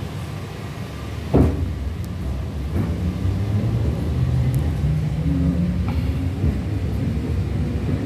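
Interior of an EP2D electric train in motion: a steady low rumble of wheels on the track, with a single sharp thump about a second and a half in. In the second half a low motor whine rises in pitch.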